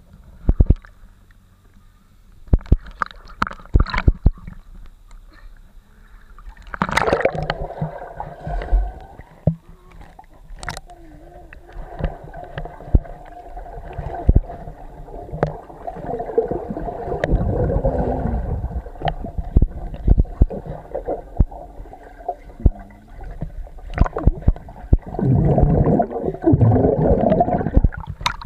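Swimming-pool water heard through a camera at and below the surface: muffled gurgling and bubbling, with frequent sharp knocks and clicks.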